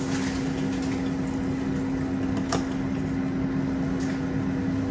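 A steady, even electric hum at one pitch from a running kitchen appliance or motor, with a single faint click about halfway through.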